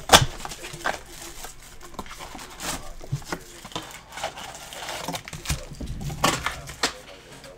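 Handling noise from opening a trading-card blaster box: plastic shrink wrap crinkling, the cardboard box and foil card packs rustling. A sharp knock comes just after the start, and a few more clacks come later as the packs are handled.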